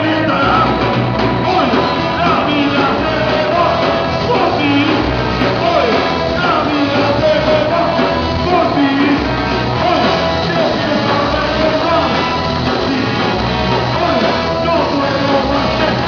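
Live rock band playing on stage, with a singer's voice over the instruments.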